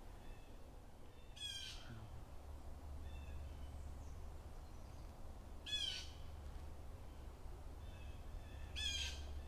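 Three short, harsh animal calls about four seconds apart, each stepping down in pitch, with faint chirps between them over a low steady rumble.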